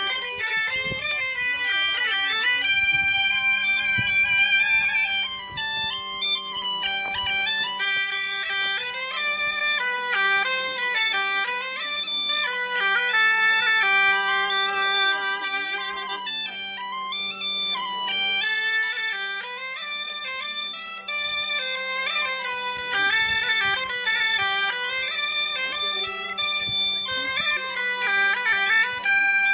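A Breton bagpipe (biniou) and a bombarde playing a tune together over the bagpipe's steady drone.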